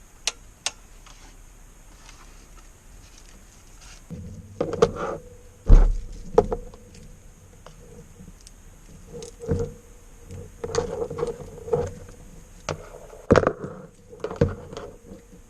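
Computer parts being handled and unpacked: two sharp clicks, then irregular knocks, clatter and rustling, with one heavy thump about six seconds in.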